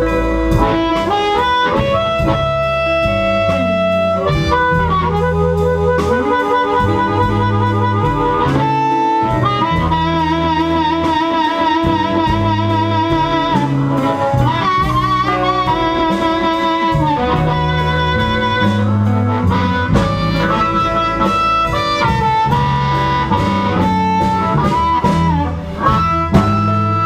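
Amplified blues harmonica played cupped around a handheld microphone: held and bent notes, some with a fast warbling vibrato, over a band's stepping bass line.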